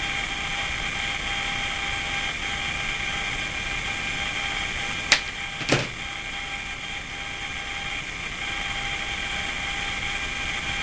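Two sharp clicks about half a second apart, midway, as wire strippers cut and pull the insulation off a stranded copper wire. A steady high whine runs underneath throughout.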